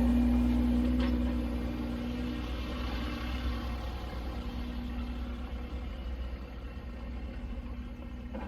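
Vehicle engine running with a steady low rumble. A steady hum that is there at first fades out over the first two or three seconds, and the whole sound grows quieter.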